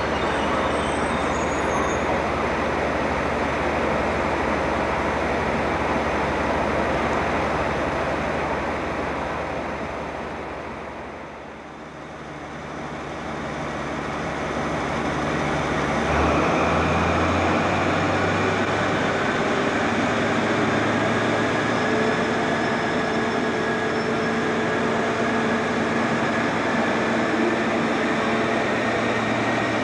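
A Sprinter diesel multiple unit's engines running steadily, fading out just before halfway. Then an InterCity HST Class 43 power car's diesel engine fades in and opens up about sixteen seconds in, with a turbocharger whistle slowly rising in pitch as the engine works.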